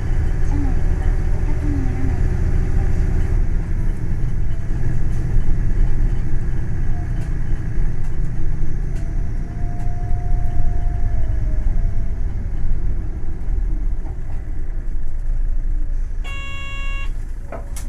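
Hino Blue Ribbon City Hybrid bus running, a steady low engine and road rumble. A faint short whine comes about ten seconds in, and a brief electronic beep sounds near the end.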